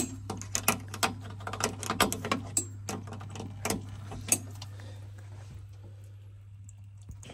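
Spanner clicking against the brass drain-off fitting on a combi boiler's filling loop as it is turned to open the drain, a run of irregular sharp clicks that stops about four seconds in.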